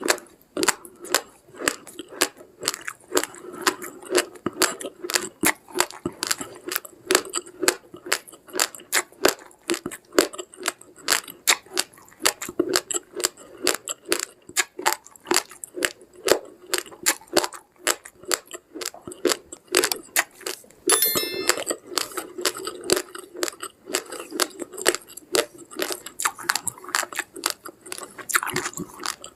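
Uncooked rice grains being chewed, a rapid, steady run of dry, gritty crunches. A short ringing tone sounds about two-thirds of the way in.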